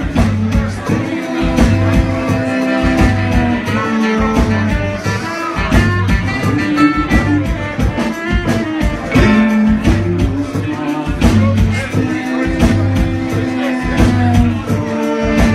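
Live band playing: electric guitar, saxophones, bass and drum kit over a steady drum beat.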